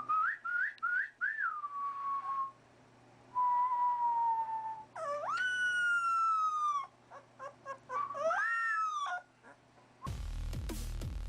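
A dog whining and howling in a series of high, sliding calls: a few quick rising yelps, then long drawn-out tones that rise and slowly sink. Music with a heavy beat cuts in near the end.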